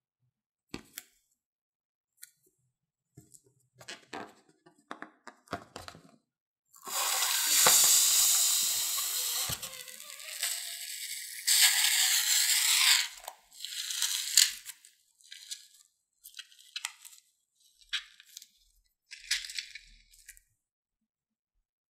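Slime being squeezed out through the neck of a rubber balloon. There are two long, loud noisy rushes about a third of the way in, then a run of short crackles and rustles as the balloon is handled.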